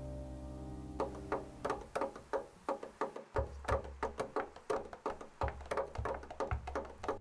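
Music: a held chord rings away, then a quick, steady pattern of short tapped percussion strikes, like a wood block, sets up a rhythm.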